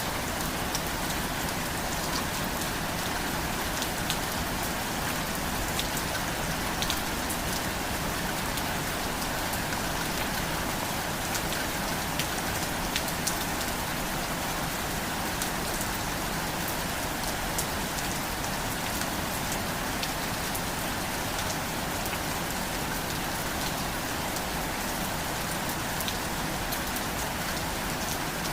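Steady rain falling, an even hiss with scattered sharp drop ticks, at a constant level.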